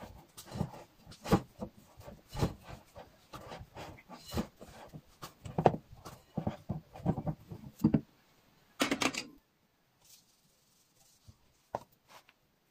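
Hands squeezing and working sticky pizza dough in a glass bowl: irregular soft knocks, squelches and rubbing. A short scrape comes about nine seconds in, then only a few faint taps.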